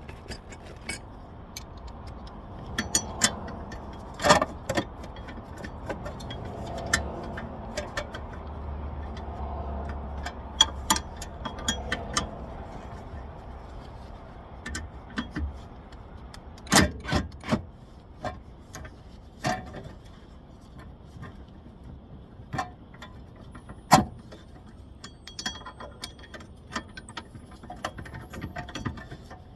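Hand tools clinking and clicking on metal at irregular intervals as a socket on an extension turns and snugs the mounting bolts of a new rear wheel bearing hub, with a few louder metallic knocks, over a low rumble.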